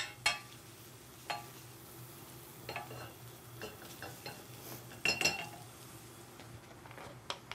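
Wooden spoon stirring garlic in oil in a stainless steel frying pan: scattered light knocks and scrapes of the spoon against the pan, with a louder pair of knocks about five seconds in.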